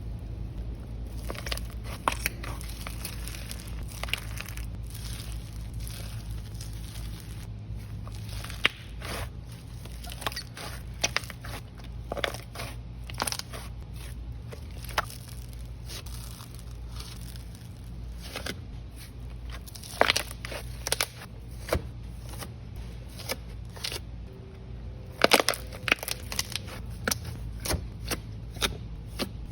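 Crunchy slime being squished and pressed by hand, giving irregular sharp crackles and pops, with the loudest clusters about two-thirds of the way through and near the end.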